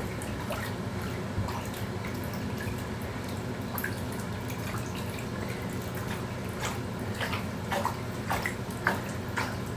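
Water running steadily in a small tiled room, with scattered drips and small splashes while a conure bathes in it.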